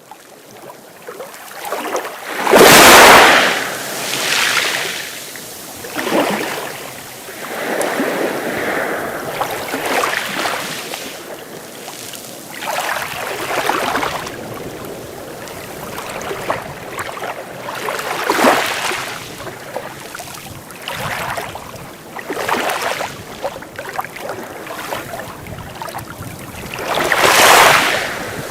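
Sea waves breaking and washing up a beach in a series of surges. The loudest one comes about three seconds in and another near the end, with smaller ones every few seconds between.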